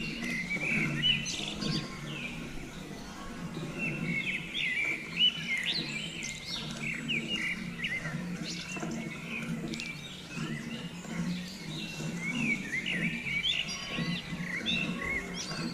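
Small birds chirping: many short, quick chirps overlapping in clusters, over a steady low background hum.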